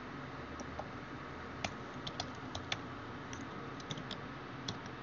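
Typing on a computer keyboard: a dozen or so light, irregular keystrokes, bunched toward the middle and later part, over a faint steady hiss.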